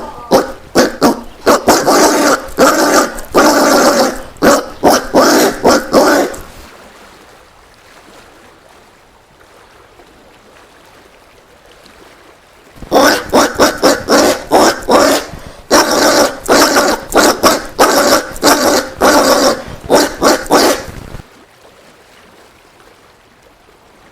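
Collared peccary calling: a rapid run of loud, harsh calls, several a second, in two bouts of about six and eight seconds with a pause of about six seconds between.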